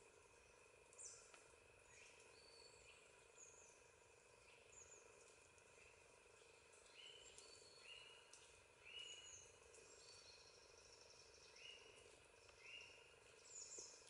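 Faint nature ambience of animal calls: short chirping notes repeat every second or two, more often in the second half, over a steady low hum.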